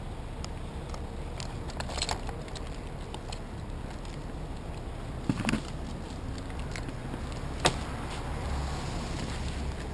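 Metal climbing and rigging hardware clinking a few times as a climber handles a rigging rope, the loudest clink about three-quarters of the way through, over a steady low rumble.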